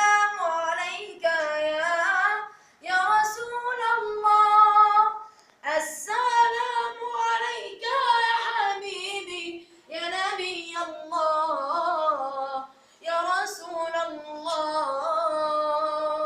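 A boy's high solo voice singing an Arabic nasheed unaccompanied, in several long melismatic phrases with short breaths between them.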